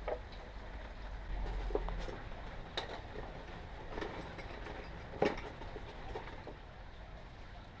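About half a dozen scattered sharp knocks and clicks, the loudest a little past five seconds in, over a low hum that drops away about two seconds in.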